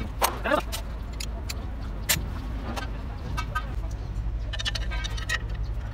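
Hand tools clinking and tapping on metal parts of a truck gearbox being reassembled: scattered sharp knocks, and a quick run of metallic clicks past the middle, over a steady low hum.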